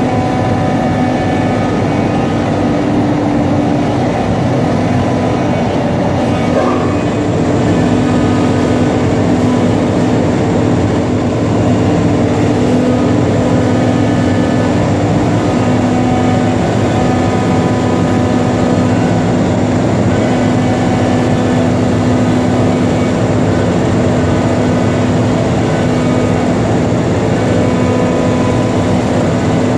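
CNC router running: a loud, steady machine hum made of several held tones over a constant noise. The strongest tone steps slightly lower about seven seconds in.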